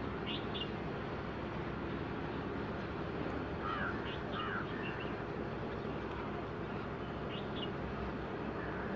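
Bird calls: short chirps in pairs and small groups, three times, over the steady hum of a distant small motorboat's outboard engine.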